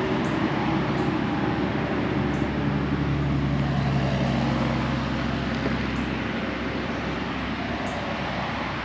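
A passing motor's engine noise, a steady rumble with a low hum, slowly fading away.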